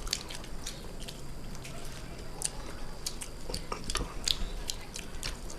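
People chewing and eating food, with irregular short wet clicks from the mouth.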